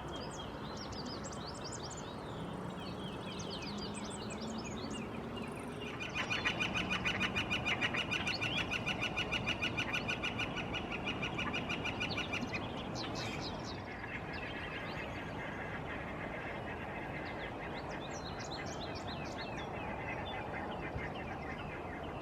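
Northern flicker giving its territorial long call, a rapid, even run of loud 'wick-wick-wick' notes lasting about six seconds, starting about six seconds in. A second, fainter run of the same call follows. Other small birds chirp throughout.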